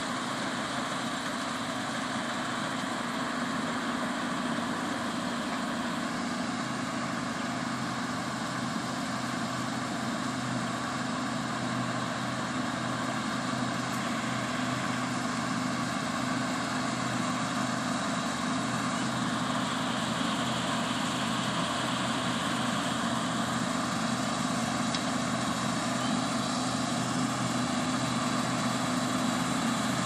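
New Holland TX64 Plus combine harvester running as it cuts winter barley: a steady machine drone with a few held tones, growing slowly louder as it comes closer.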